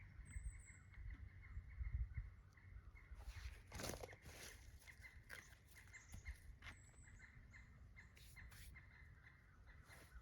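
Near silence: faint outdoor ambience with scattered light knocks and clicks, the strongest about four seconds in, and two brief high chirps.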